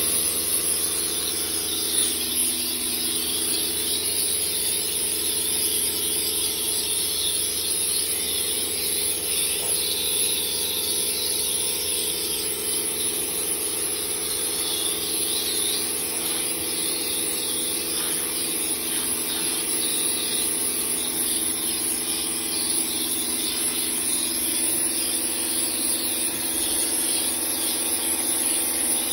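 Kärcher K3 Power Control pressure washer running steadily: an even motor-pump hum under the hiss of the water jet from the variable lance on its soft, low-pressure setting.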